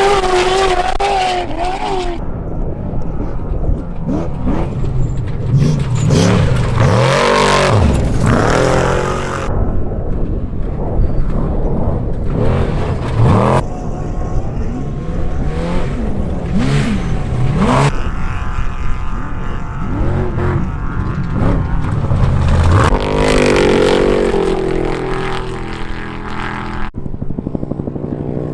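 Off-road race vehicle engines revving hard and passing one after another, the pitch rising and falling as each goes by. The sound changes abruptly several times from one vehicle to the next.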